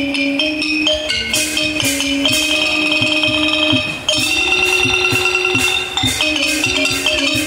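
Thai traditional ensemble music led by a ranat ek xylophone: a pitched melody over frequent drum and cymbal strokes.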